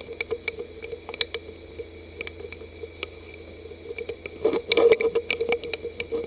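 A steady hum with irregular light clicks and taps throughout, and a louder cluster of them about four and a half seconds in.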